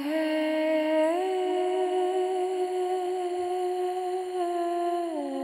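A steady humming tone held on one pitch. It rises in two small steps within about the first second, holds, then falls back in two steps near the end.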